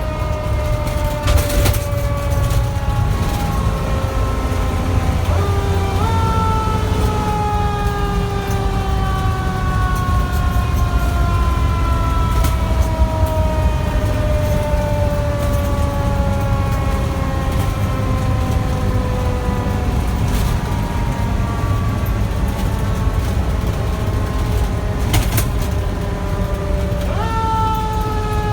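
Federal Q mechanical siren on a fire truck winding down in long, slowly falling wails. It is briefly spun back up twice, about six seconds in and near the end, over the steady low rumble of the truck's engine.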